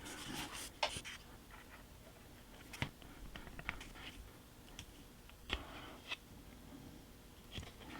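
Faint, scattered light taps and clicks of small plastic model parts being handled and pressed together on a workbench.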